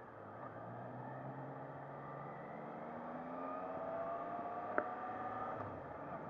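Triumph Trident 660's inline three-cylinder engine accelerating, its note rising steadily in pitch. Near the end there is a single sharp click, and the engine note breaks off soon after, as at a gear change.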